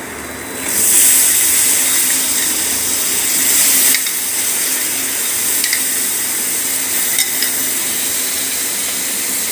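Soaked chana dal sizzling as it is tipped into hot oil and fried masala in a kadhai. The hiss starts suddenly about a second in, is loudest for the next three seconds, then eases a little, with a couple of light clinks of the spoon against the steel bowl.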